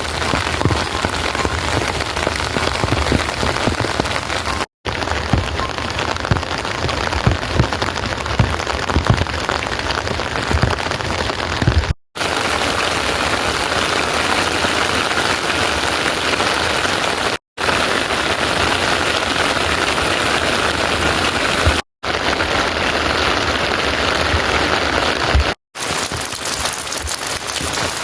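Steady rain falling, an even hiss of drops, heard in several short clips joined together, each cut leaving a brief moment of silence. A few low thuds come through in the first third.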